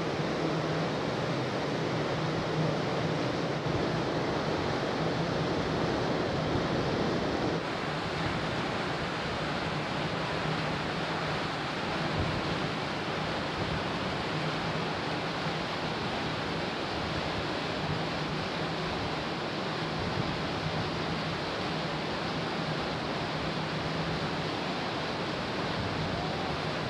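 Steady rush of wind and water past a ferry under way, heard from the open deck, with the low steady drone of the ship's engines underneath.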